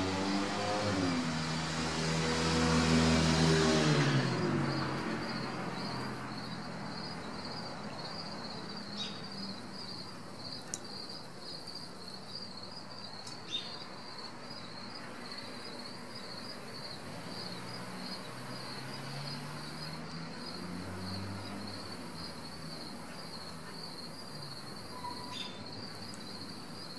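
Insects chirping in a steady, rapid high-pitched pulse. A motor vehicle passes in the first four seconds, its engine falling in pitch as it goes by, and is the loudest thing heard. A second vehicle passes faintly later on.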